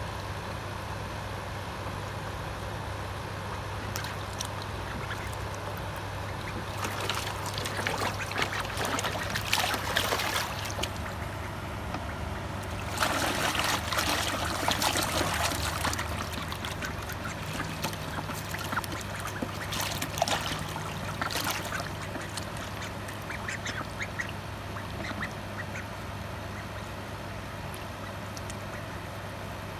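Ducks bathing in a shallow plastic tub of water, splashing in several bursts a few seconds long with quieter dabbling in between.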